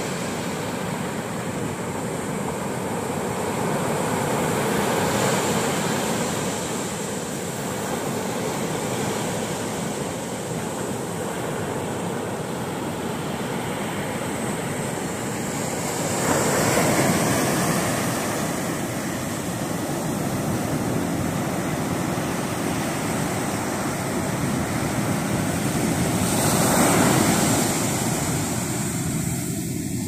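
Heavy monsoon surf breaking on a sandy beach: a continuous rushing wash of water, swelling louder with a bigger breaking wave about every ten seconds.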